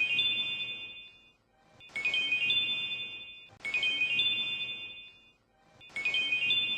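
A phone-style ringtone: a short electronic chime of notes stepping upward and then ringing out and fading. It repeats about every two seconds.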